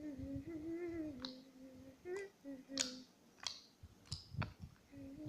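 Slime being worked by hand, giving a scattered series of sharp, wet clicks and pops, over a faint, steady humming tone.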